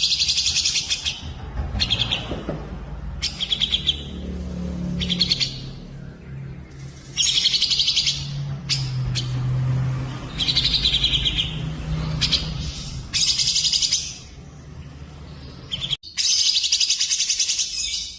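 Songbirds singing on a mixed masteran recording of cucak jenggot (grey-cheeked bulbul), cililin and canary: loud phrases of very rapid, buzzy trills, each lasting one to two seconds, with short pauses between them, over a faint low hum that cuts off abruptly about two seconds before the end.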